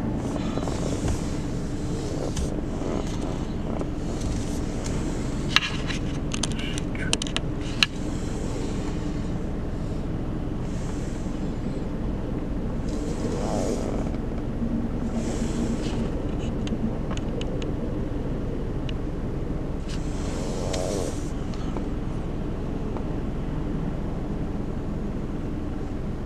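Car idling while stopped, heard from inside the cabin: a steady low engine hum. Cross traffic swishes past several times, and a few sharp clicks come between about five and eight seconds in.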